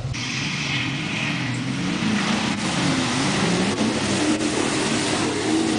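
Pickup truck engine revving under load as it tows a fifth-wheel camper through deep mud and water, its pitch rising and falling, over the wash and splatter of mud and water thrown up by the tyres.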